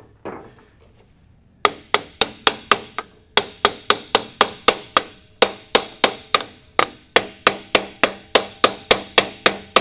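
Hammer blows on the end of a 3-inch plastic sewer pipe used as a seal driver, driving a new input seal into a GM transfer case. A quick run of sharp, even strikes, about three or four a second, starts a couple of seconds in and pauses briefly a few times.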